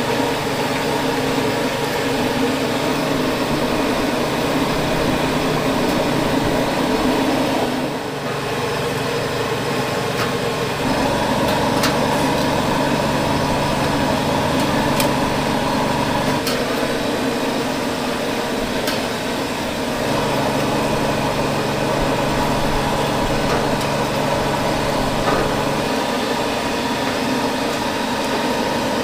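Steady hum of a small motor running, its tone changing and parts of it dropping out and returning every few seconds, with a few faint clicks.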